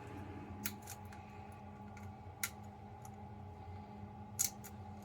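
Lock picks working in a Bunker Hill Security hidden-shackle padlock: five or six small sharp metallic clicks, scattered and spaced up to a couple of seconds apart, over a steady low hum.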